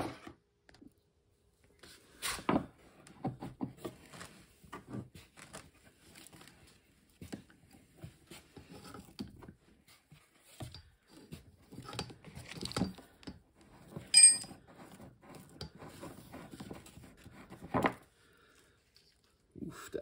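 Hand-tool handling noises: pliers working a rusted hose clamp and fuel line off the outlet fitting of a plastic snowmobile fuel tank. The sound is scattered clicks, scrapes and rustles, with a short ringing metal clink about two thirds of the way through.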